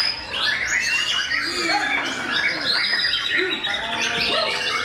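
Many caged white-rumped shamas (murai batu) singing at once: a dense, unbroken mass of overlapping whistles, slurred glides and chirps.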